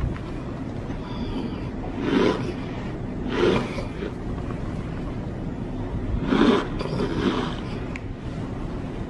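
Packed cornstarch crunching and squeaking as it is bitten and chewed, in about four short bursts, over a steady low hum.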